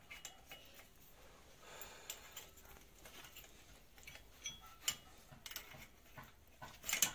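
Metal tools and engine parts being handled at a workbench: faint scattered clicks and taps, ending in a louder metallic clatter.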